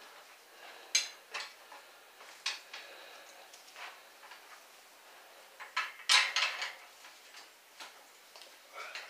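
Irregular metal clicks and clinks from hands and tools working at a bicycle's rear hub, chain and derailleur while the rear wheel is being removed, with a louder run of clattering about six seconds in.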